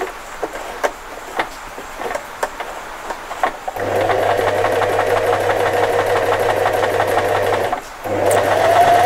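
Singer FM 2250 electric sewing machine sewing on a button with a zigzag stitch: a few light clicks, then the machine runs steadily at speed for about four seconds, stops briefly, and runs again, rising in pitch near the end.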